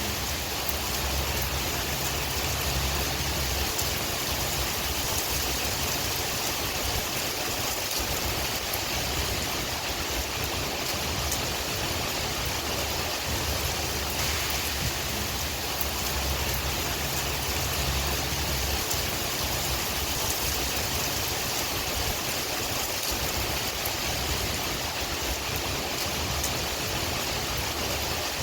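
Steady rain falling, with a low rumble of wind that swells and eases underneath and faint drops ticking through the hiss.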